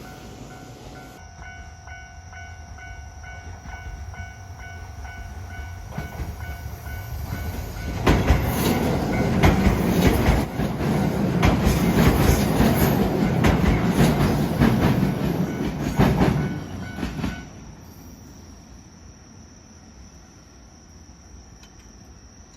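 A train passing close by, its wheels clacking rhythmically over the rail joints. It builds up, is loud for about nine seconds, then drops away sharply.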